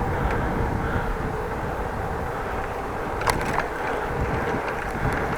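Steady wind and road rumble from a bicycle ride, with one sharp click a little past three seconds in.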